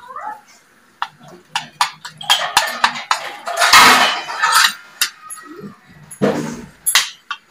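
Metal spoon stirring yogurt and chopped herbs on a ceramic plate, clinking and scraping against the plate. There is a louder, longer noisy stretch about three to five seconds in and a shorter one near the end.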